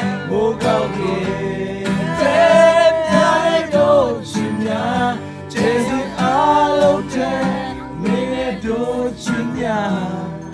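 Acoustic guitar played live with voices singing along.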